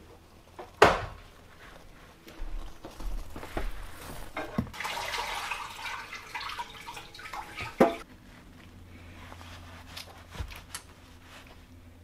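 Kitchen tap water running for about three seconds in the middle, ending with a sharp knock. A louder sharp knock about a second in.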